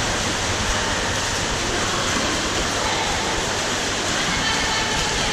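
Steady, even wash of water noise from water polo players swimming and splashing in a large indoor pool hall.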